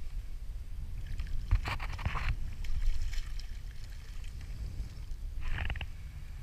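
Wind buffeting the microphone on a kayak out on choppy water, a steady low rumble. Water splashes twice, the first longer, about a second and a half in, the second short, near the end.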